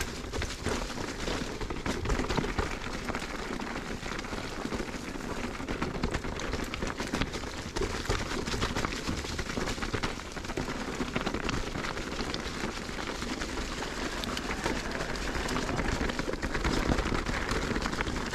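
Mountain bike riding down a wet, stony singletrack: steady tyre and trail noise with many small clatters and knocks from the bike.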